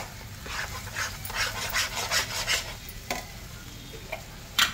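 Steel spatula stirring and scraping thick semolina halwa in a nonstick pan: a run of about six quick scraping strokes in the middle, over a faint sizzle. Sharp knocks at the start and about three seconds in, with the loudest just before the end.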